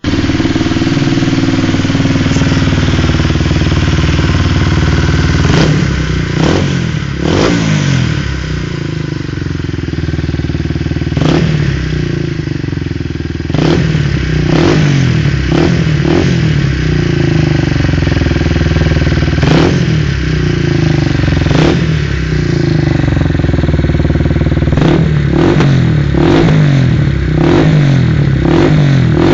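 Honda CBR125R's single-cylinder four-stroke engine running loudly through a Leo Vince SBK exhaust with the dB killer removed, blipped with many short, sharp throttle revs, coming in quick clusters in the second half.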